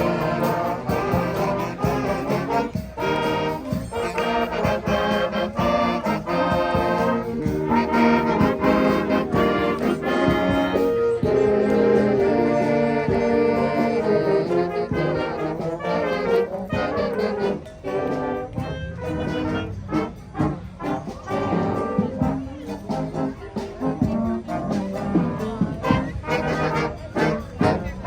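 Brass band music with trombones and trumpets playing, over a steady beat.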